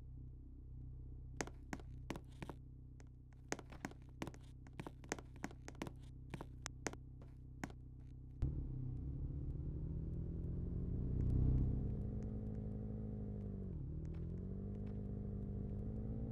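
A run of sharp clicks over a low steady hum. Then, about halfway through, a louder motor sound starts suddenly, rises in pitch, dips briefly and settles to a steady run.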